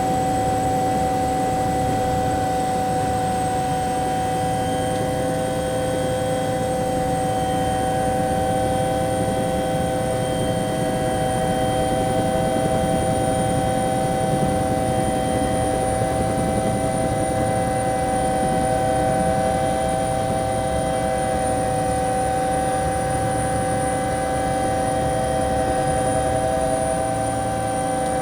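Bell 212 helicopter heard from inside the cabin: twin turboshaft engines and rotor running steadily at high power. A high turbine whine rises slightly in pitch over the span.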